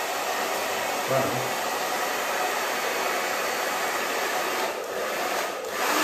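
CHLANT 8991 2000 W ionic hair dryer running, a steady rush of blown air and motor hum, with a brief dip in level about five seconds in.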